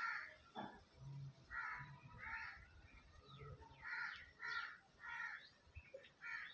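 Birds calling faintly: a series of short, repeated calls about every half second, coming in runs with a pause near the middle.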